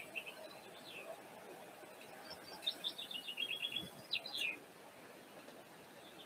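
A small songbird singing faintly: a rapid trill a little before halfway, then a couple of quick falling notes.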